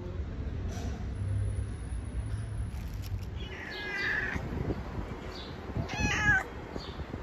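A tabby-and-white cat meowing twice, about halfway through and again near the end, the second call louder.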